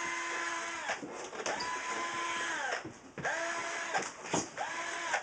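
Small electric motor, like a power tool's, triggered in bursts: it runs on from before and winds down about a second in, then spins up, runs steadily and winds down three more times, each burst shorter than the last.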